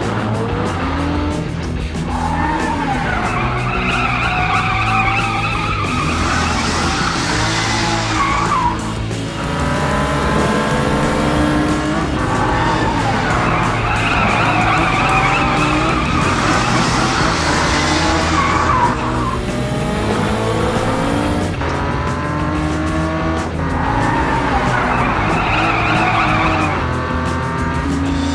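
Cartoon race-car sound effects: engines revving up in rising sweeps and tyres squealing, repeating several times, over background music.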